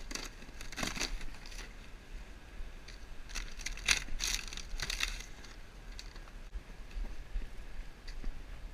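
Crunching and crackling of torn-up RV roof debris (rotted wood, sheathing and roof membrane) being broken and shifted. It comes in two spells, at the start and again from about three and a half to five seconds in, with a few fainter snaps after.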